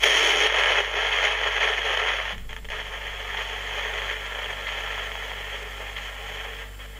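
Siemens Trabant RC 601 portable cassette recorder playing a tape through its small built-in speaker, a thin, hissy sound that starts suddenly and slowly fades. It is a playback test with a longer replacement drive belt fitted, which runs at a steady speed without wow and flutter.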